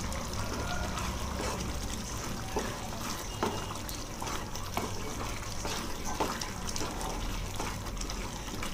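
Thick curry gravy simmering in a pan, bubbling with scattered small pops, while a wooden spatula stirs through it.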